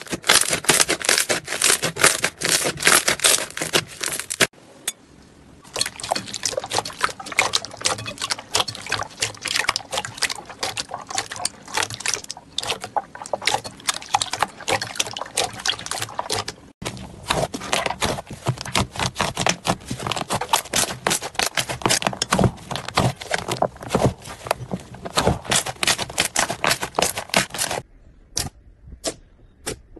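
Slime being squeezed and worked by hand: dense, rapid wet crackling and popping clicks. The clips change at short breaks, and near the end the sound thins to a few separate pops.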